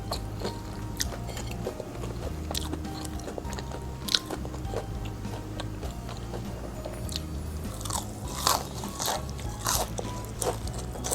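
Close-miked crunchy bites and chewing of crispy fried chicken: irregular sharp crunches that come thickest in the last few seconds, over soft background music.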